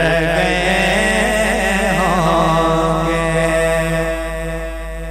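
A man singing a naat, an Urdu devotional song, holding long wavering notes with no words. The singing eases off and gets quieter about four seconds in.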